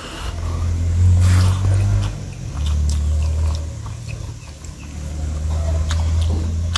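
A man chewing a mouthful of rice and pork close to the microphone, with short wet mouth clicks. Under it runs a low rumble that comes and goes in stretches of one to two seconds, and this rumble is the loudest sound.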